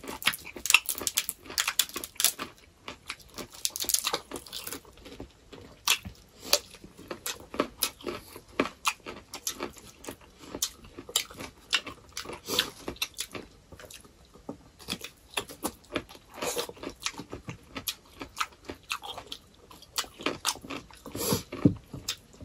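Close chewing and crunching of crisp fried flatbread and raw cucumber: a dense run of crackly crunches in the first few seconds, then slower, spaced bites and chews.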